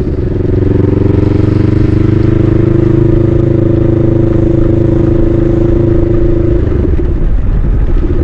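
Honda Rebel 500's parallel-twin engine pulling under way through an aftermarket twin-pipe exhaust, heard from the rider's seat over wind noise. The engine note climbs over the first couple of seconds, holds steady, then drops to a lower, rougher note near the end.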